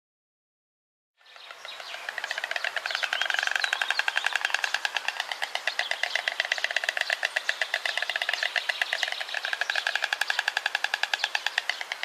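White stork clattering its bill: a rapid, even rattle of knocks that starts about a second in and keeps going with small swells in loudness.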